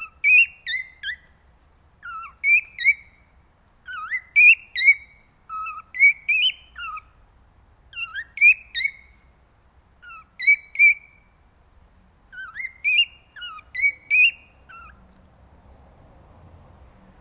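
Male cockatiel singing its courtship song: short phrases of rising and falling whistled notes, one phrase about every two seconds, stopping near the end.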